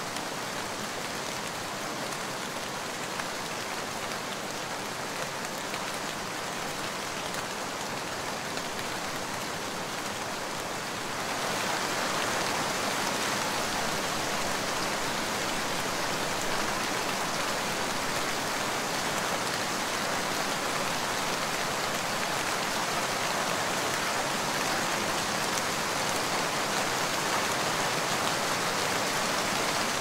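Steady rain falling, a constant even hiss of drops. About eleven seconds in it turns louder and fuller, and stays so.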